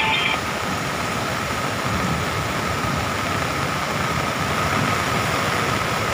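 Floodwater rushing through the opened gates of a concrete dam: a steady, loud, unbroken rush of water.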